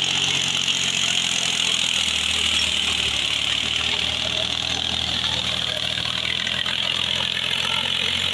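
Mahindra B275 DI diesel tractor engine running steadily under load while it pulls a cultivator through wet paddy mud. A steady high hiss lies over the engine throughout.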